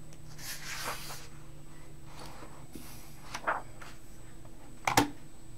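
Soft rustling swishes of handling noise, then a sharp knock about five seconds in, the loudest sound, over a steady electrical hum.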